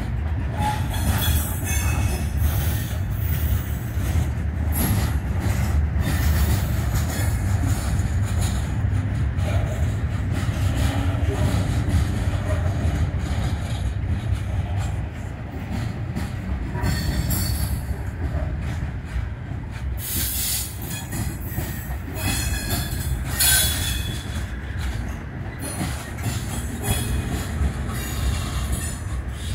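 Freight train of gondolas and boxcars rolling past close by: a steady low rumble of steel wheels on rail, with short stretches of high wheel squeal, about a second in and again between about 17 and 24 seconds in.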